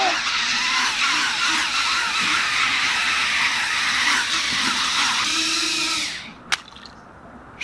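Small FPV quadcopter's four BetaFPV 1103 brushless motors with 2-inch props, whining with a pitch that wavers as the throttle changes while the drone drives across the pool surface. The motors cut off suddenly about six seconds in, as the drone ends up flipped upside down on the water.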